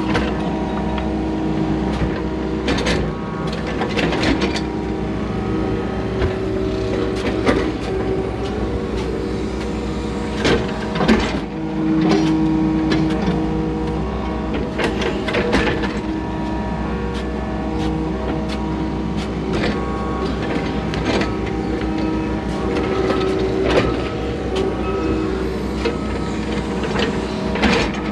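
Excavator diesel engine and hydraulics running under load, heard from inside the cab, with a hydraulic whine that rises and falls several times. Repeated sharp knocks and scrapes come from the bucket digging soil in the trench.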